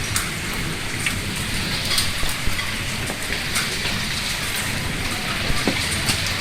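Hailstorm: a steady, dense downpour of hail and rain, with scattered sharp ticks of single hailstones striking.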